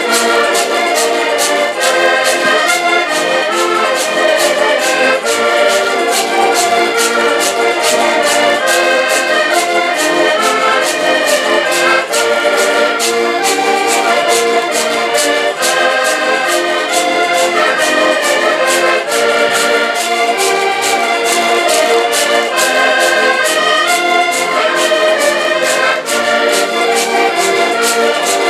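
Accordion ensemble playing a lively traditional Portuguese folk tune in full chords, with a small string instrument keeping a steady beat.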